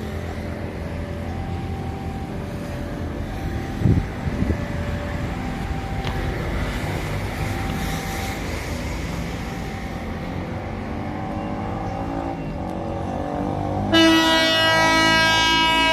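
Low steady diesel engine rumble, then about 14 seconds in the CC 201 diesel-electric locomotive's horn sounds loudly and abruptly, a rich multi-tone chord held on past the end.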